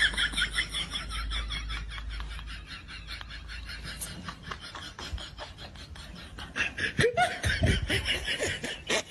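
Laughter: people chuckling and snickering in quick repeated bursts, louder near the end.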